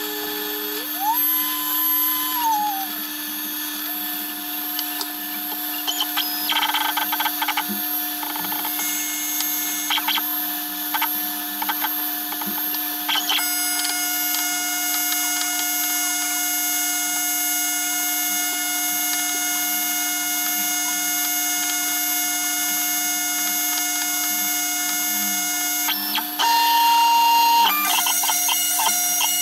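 A small CNC router cutting a folding-knife handle scale with a spindle-mounted end mill: a steady machine whine with tones that shift and glide in pitch as the cut moves. Rattling bursts of cutting come now and then and are loudest near the end.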